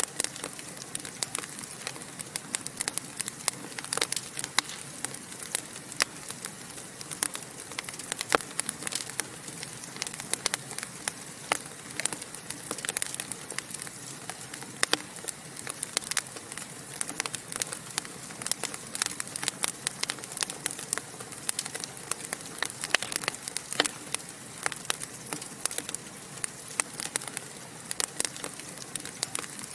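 Wood fire crackling and popping: a steady hiss with dense, irregular sharp pops throughout.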